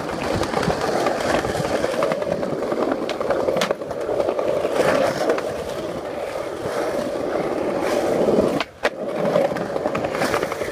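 Skateboard wheels rolling on a concrete sidewalk: a steady rumble with a few sharp clacks. The sound drops out briefly near the end.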